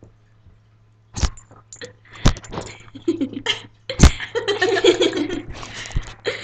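Boston terrier–chihuahua mix nosing and snuffling right against a laptop's built-in microphone: several knocks as its snout bumps the computer, with snuffling noises between them.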